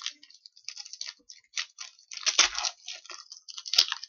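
Trading cards being handled and slid against one another: a run of short, irregular rustles and clicks, with a sharper snap near the end.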